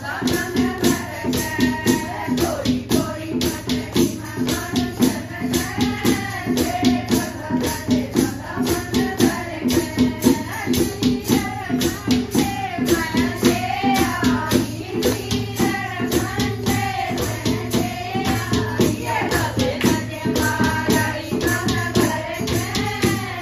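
A chorus of women singing a Haryanvi folk bhajan, backed by steady rhythmic hand clapping, a shaken rattle and a clay pot (ghara) beaten as a drum.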